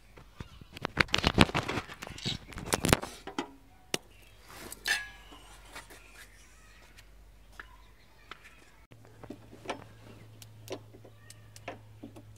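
Metal parts of a gas stove clattering and knocking as it is put back together: a quick run of knocks in the first few seconds, then scattered clicks as the knobs are fitted.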